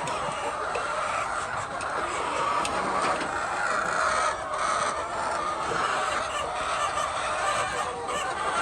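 A flock of chickens clucking continuously, many birds overlapping into a steady chorus.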